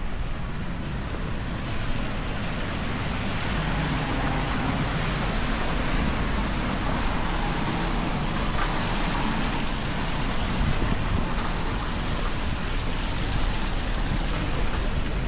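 Steady rain falling on a city street, with a low rumble underneath.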